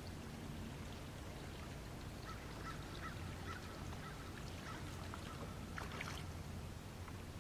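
A bird calling a series of short repeated notes for a few seconds, starting about two seconds in, over a steady low rumble, with a couple of sharp clicks near the end of the calls.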